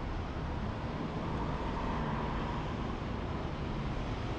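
Steady low rumble of vehicle engines and traffic, swelling slightly about halfway through.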